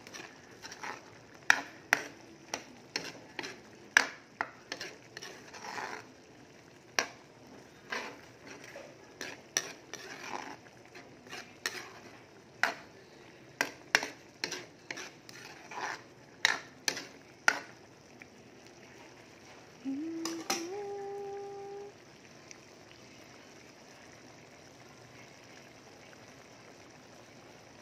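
A ladle stirring a simmering vegetable-and-meat stew, knocking and scraping against the metal pan in many sharp clinks through the first two thirds, over a faint steady simmer. About twenty seconds in comes a brief tone that rises in pitch and holds for about two seconds.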